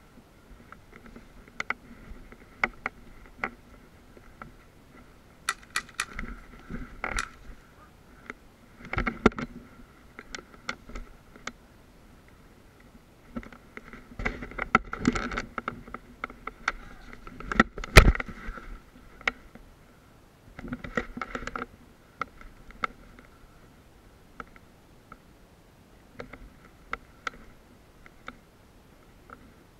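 Scattered sharp clicks, knocks and scrapes of someone moving about and handling gear in a ruined building and the brush around it, in clusters with quiet gaps; one knock past the middle is the loudest.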